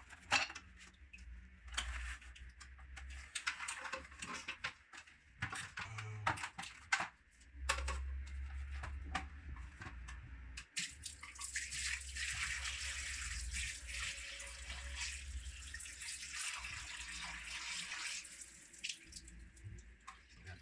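Water running and splashing as a water-filtration vacuum cleaner's dirty water tank is emptied and rinsed at a sink, with knocks and clatter from handling the tank. A steady rush of running water fills the second half.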